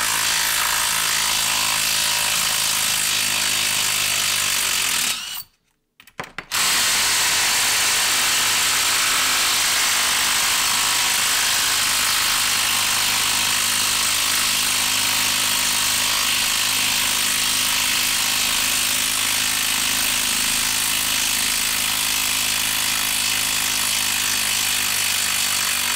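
HART brushed quarter-inch hex impact driver hammering steadily on a 4-inch lag screw in a log, backing it out. The hammering stops for about a second about five seconds in, then runs on long and unbroken: the driver, on a small 1.5 Ah battery, takes a while to do it.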